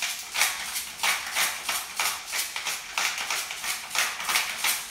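Black pepper being ground over a soup pot with a hand-twisted pepper mill: a steady run of gritty crunches, about four or five twists a second.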